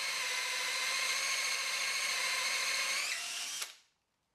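Cordless drill spinning a hole saw into plywood: a steady motor whine over the scrape of the teeth, cutting on without a break so that the friction scorches the wood and overheats the saw. The pitch wavers and the drill cuts off suddenly about three and a half seconds in.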